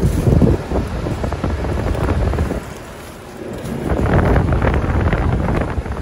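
Trane XL1200 heat pump outdoor unit running, its condenser fan blowing air out through the louvers, with the airflow buffeting the microphone in loud gusts that swell and dip.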